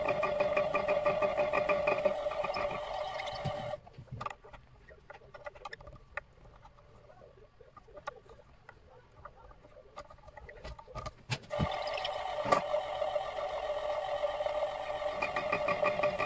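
Small milling machine running with a steady pitched hum, stopping about four seconds in. A few light clicks and knocks follow, and it starts running again about twelve seconds in.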